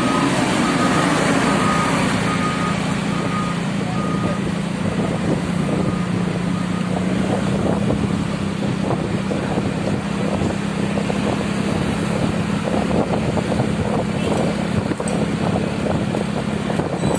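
Road traffic in a jam: a heavy vehicle's engine running steadily under a general rush of traffic noise. For the first seven seconds an electronic beep repeats at a little under one a second, like a vehicle's reversing alarm.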